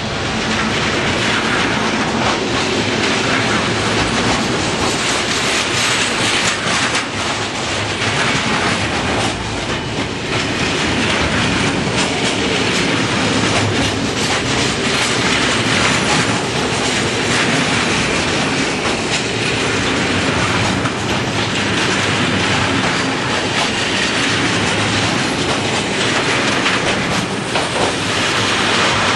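Freight train of hopper wagons and tank wagons rolling past close by at rail level: a steady, loud rumble and clatter of steel wheels running over the rails.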